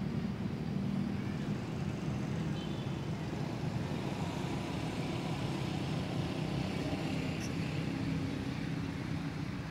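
A low, steady mechanical hum that holds level with no breaks.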